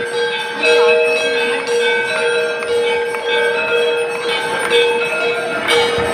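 Hindu temple bells ringing without a break for the aarti, several bell tones sounding over one another and struck again and again.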